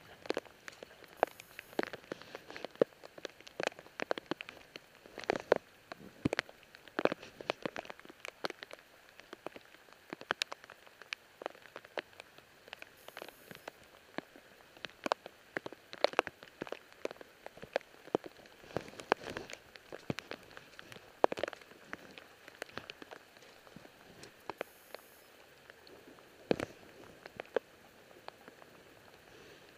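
Rain falling, with scattered drops tapping sharply and irregularly several times a second.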